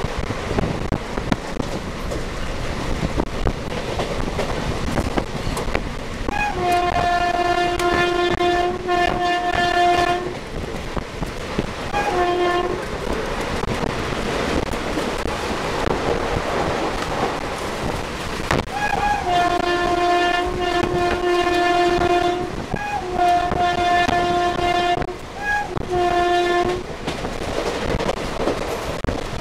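WAP-4 electric locomotive's twin-tone horn sounding in several blasts, one group about a quarter of the way in and another in the last third, as the train passes at over 100 km/h. Underneath runs the steady rumble and clatter of the 24-coach express on the rails.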